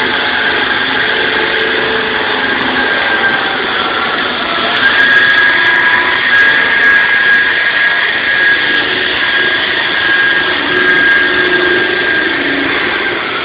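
SAW160 concrete saw running loud and steady, with a strong high whine from the blade. The whine dips slightly in pitch about four seconds in, then recovers.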